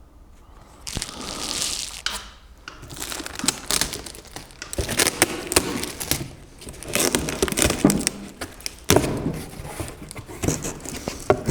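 Parcel packaging being torn open and handled: crinkling and tearing with many irregular crackles and clicks, starting after about a second of quiet.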